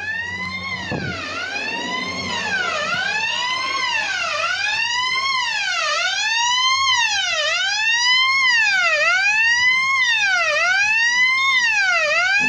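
Electronic fire alarm sounder wailing, its tone sweeping up and down about once every second and a half and growing louder.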